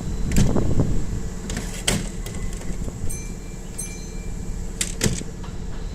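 Out-of-service train running past, a steady hum under sharp knocks of wheels over rail joints, with two brief high squeals a little after the midpoint.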